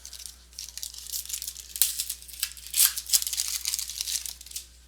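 Trading cards and pack wrappers being handled: a run of quick rustling, crinkling and sliding strokes.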